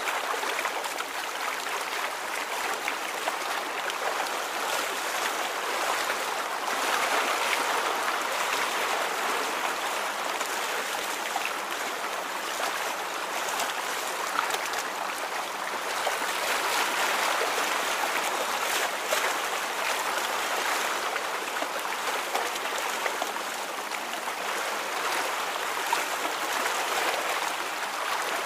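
Water flowing and babbling steadily, an even watery hiss that swells and eases slowly every several seconds.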